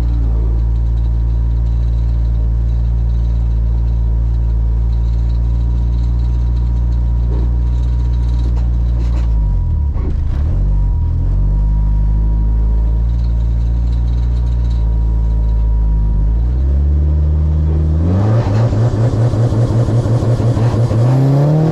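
Street-car drag racing engine idling with a deep, steady sound that dips briefly twice. About eighteen seconds in it breaks into a fast pulsing and revs up, its pitch climbing near the end.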